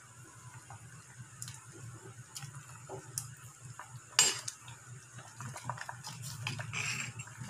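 Metal ladle stirring a pot of simmering soup, clinking and scraping against the stainless steel pot. There is one sharp clank about four seconds in, and a low steady hum underneath.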